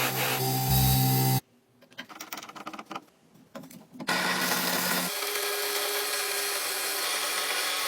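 Background music cuts off about a second and a half in, followed by a short near-quiet stretch with a few faint clicks. Then a power tool starts up and runs steadily: an abrasive rubbing over a constant motor hum, as in sanding or wire-brushing old stove parts.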